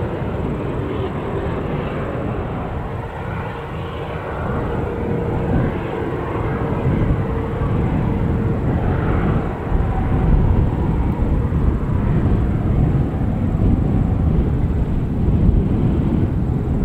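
Aircraft engines running, a deep rumble with a steady hum on top, growing gradually louder.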